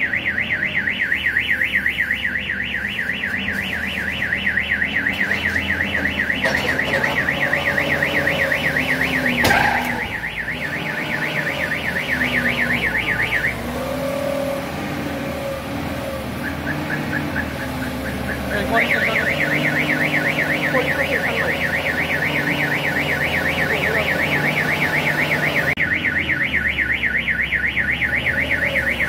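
A car alarm warbling fast and evenly, which cuts out about halfway and starts again a few seconds later, with a vehicle engine running underneath and a sharp knock about a third of the way in.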